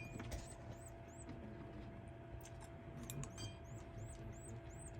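Canary chick's faint, thin, high begging chirps, each rising and falling, about three a second, pausing briefly in the middle.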